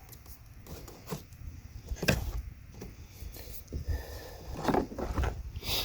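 Scattered clicks and knocks of a car's brake light assembly parts being handled, a sharp one about two seconds in and several more near the end, over a low rumble.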